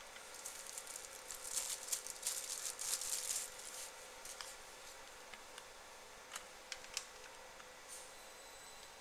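CO2 laser marking machine marking a plastic box: a rapid, dense crackling for about three seconds as the beam scans the text, over a low steady machine hum, followed by a few separate sharp clicks.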